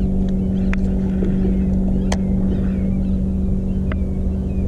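Steady low hum with an uneven low rumble beneath it, broken by three sharp clicks.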